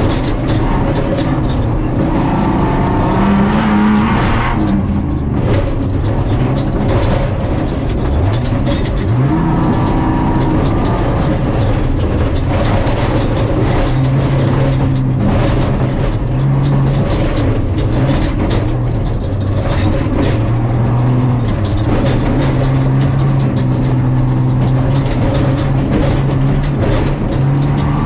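Prerunner truck's engine pulling hard at speed on a dirt road, heard from inside the cab along with tyre and road noise and scattered rattles. The engine note climbs about nine seconds in, then holds a steady pitch through the second half.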